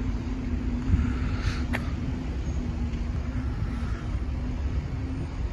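Steady low vehicle rumble with a constant hum, and one short sharp click a little under two seconds in.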